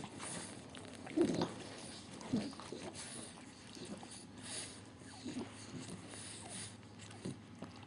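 A two-and-a-half-week-old French Bulldog puppy making a few short, low vocal sounds, spread a second or two apart.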